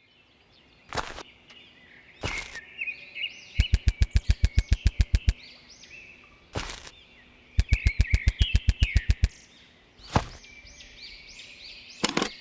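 Birds chirping throughout, cut by five single sharp hits and two runs of loud, evenly spaced clicks at about eight a second, each run lasting under two seconds.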